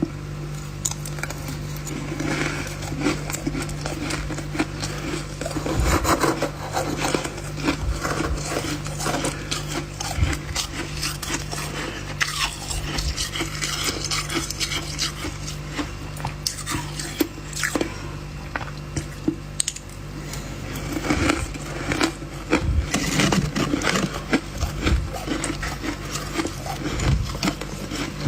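Freezer frost ice being crunched and scraped: a dense, irregular run of crisp crackles and scrapes over a steady low hum.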